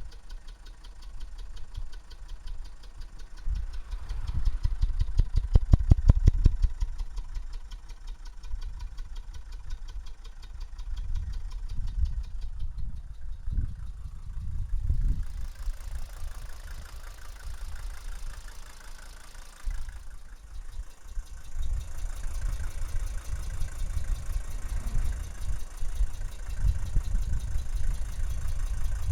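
Mercedes-Benz W123 300D's OM617 five-cylinder diesel idling, with an even, rhythmic pulsing at the exhaust that is loudest a few seconds in. This is the strange exhaust noise the owner cannot explain.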